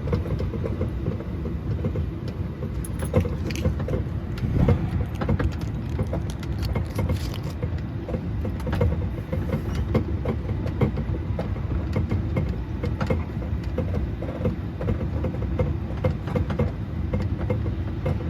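Mall ride-on train running, heard from on board: a steady low rumble with frequent light rattles and clicks.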